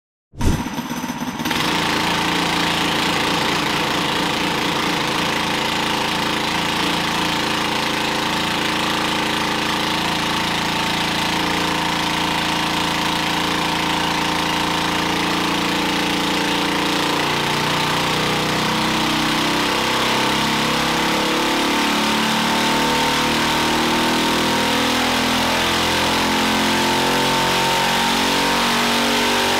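Small single-cylinder 196cc engine of a Coleman B200RSV mini bike running at a steady speed, cutting in abruptly about half a second in. Over the second half the beat turns choppier and the pitch creeps slightly up.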